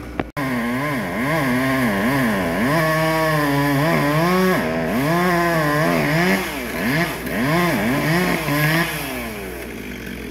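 Chainsaw cutting through a hickory trunk, its engine pitch rising and falling over and over as the throttle is worked, easing off near the end as the cut section comes free.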